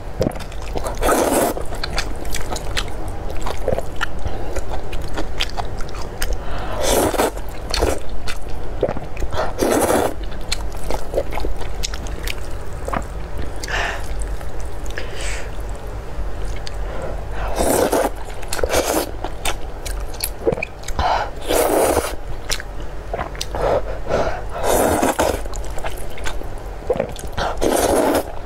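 Close-miked eating of saucy glass noodles: loud slurps as strands are drawn into the mouth, recurring every second or few, with wet chewing and mouth clicks between them. A steady low hum runs underneath.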